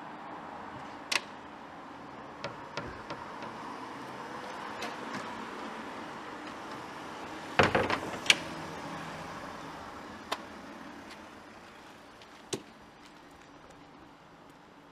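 Steady outdoor background hum with scattered sharp clicks, and a louder cluster of knocks about seven and a half seconds in, the loudest sound here; the background slowly fades toward the end.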